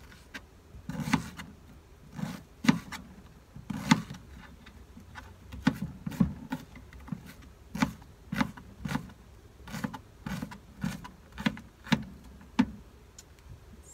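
Kitchen knife dicing a red onion on a plastic cutting board: irregular chopping knocks, about one or two a second.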